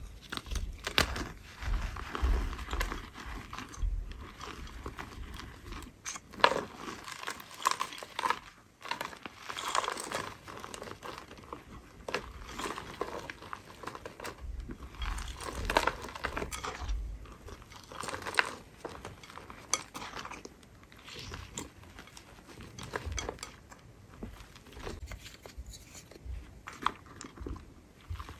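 Hands kneading and crushing thin pressed powder discs in a bowl of fine white powder, making dense, irregular soft crunches. Runs of muffled thumps come near the start and again around the middle as the hands press down into the bowl.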